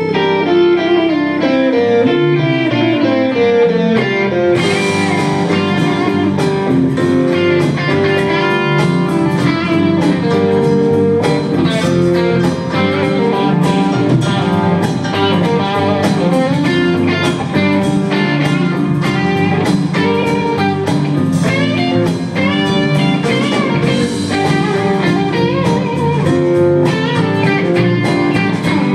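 Live band playing: electric guitar over double bass, drums and keyboard, with cymbals coming in about four seconds in.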